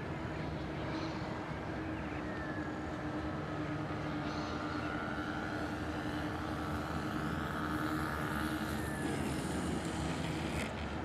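Electric motors and propellers of a large four-engine RC model Hercules aircraft running with a steady drone. A higher whine grows louder from about four seconds in and fades again near the end.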